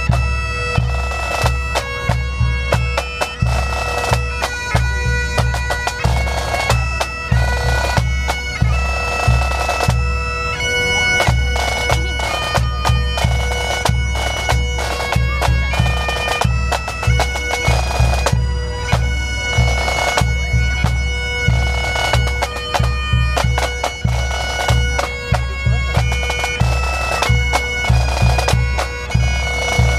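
Pipe band playing: bagpipes carry a melody over their steady drone, with drums beating along in a regular rhythm.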